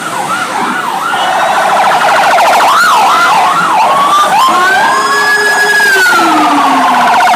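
Bus 'telolet basuri' musical air horn sounding a rapid warbling run of rising and falling tones, getting louder about a second and a half in. About five seconds in it settles into a long held note that sags in pitch near the end.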